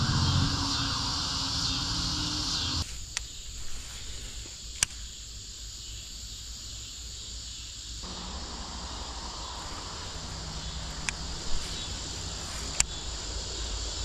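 Insects chirping in a steady high-pitched drone, with a few sharp clicks scattered through.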